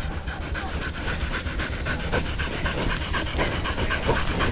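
Hunting dog panting fast and hard, a quick even run of breaths.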